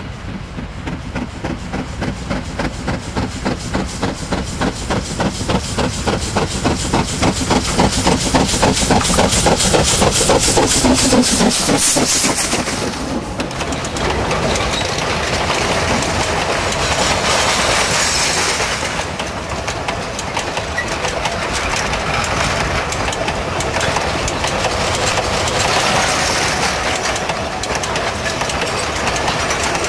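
Steam locomotive approaching and passing, its exhaust beats quickening and growing louder until it goes by about twelve seconds in. The train of wagons then rolls past with a steady rumble and clickety-clack.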